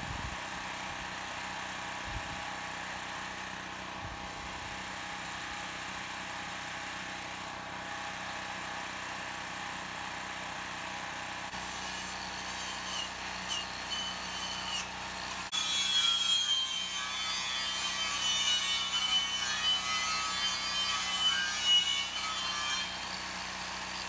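A portable generator runs steadily, then about two-thirds of the way in a handheld power saw starts cutting through a steel C-purlin, a loud rough rasp with a wavering high metallic squeal that carries on to the end.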